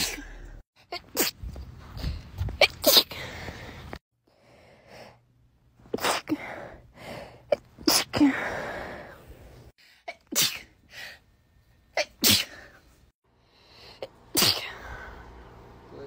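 A woman sneezing again and again, the sneezes sharp and sudden and several coming close together in quick runs.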